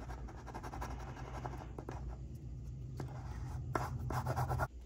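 Fingertips and metal tweezers rubbing and pressing a paper sticker down onto a planner page: soft scratchy rustling with a few light ticks. A low steady hum underneath stops just before the end.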